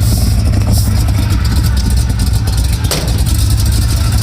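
Squarebody K5 Blazer engine running steadily with a low rumble, its newly fitted engine fan turning. A single sharp click about three seconds in.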